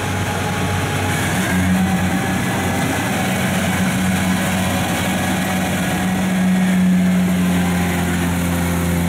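Kubota combine harvester's diesel engine running steadily under load as the tracked machine climbs a steep slope, a continuous low hum.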